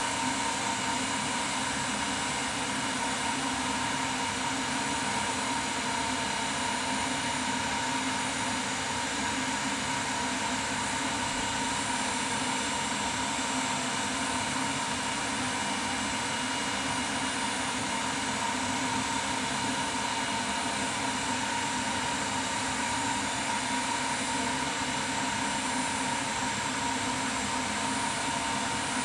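Kellenberger 125/600U cylindrical grinder running steadily with a constant whine, its grinding wheel dwelling on the work during spark-out, with no further infeed while the last sparks die away.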